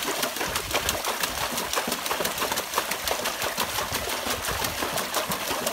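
Water splashing in a plastic tub as a dog thrashes about in it, a steady dense patter of quick irregular splashes.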